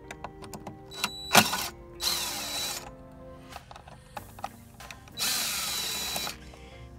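DeWalt cordless drill/driver running twice, about a second each time, with its bit on a screw of a boat's swim platform. A sharp knock about a second and a half in is the loudest sound, with clicks of the tool and screw in between and background music underneath.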